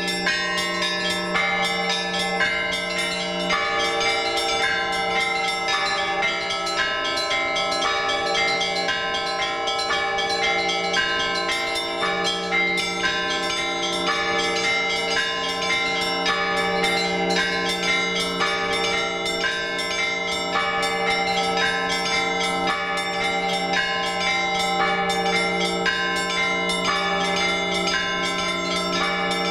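Orthodox church bells rung together in a trezvon peal. Rapid strikes on the small bells keep repeating over the lasting hum of the larger bells, without a pause.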